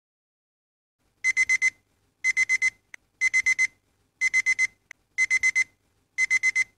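Smartphone alarm beeping: about a second in it starts, sounding groups of four quick high beeps, one group each second, six groups in all.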